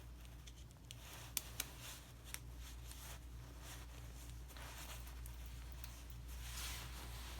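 Hand tools being handled and taken from a tool bag: three sharp clicks between about one and two and a half seconds in, then soft rustling twice near the end, over a steady low hum.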